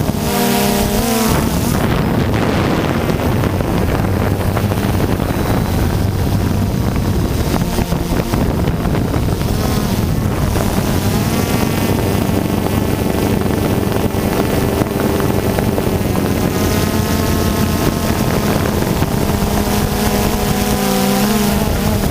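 Multirotor drone's motors and propellers whirring steadily, with several whining tones shifting in pitch as the motors change speed, under wind noise on the microphone.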